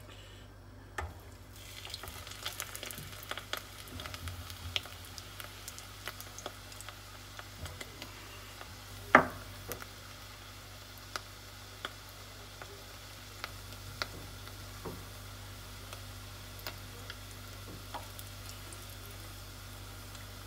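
A rolled chicken-filled corn tortilla (flauta) sizzling and crackling in hot oil, the frying starting about a second and a half in as it goes into the oil. One sharp click about nine seconds in stands out above the sizzle.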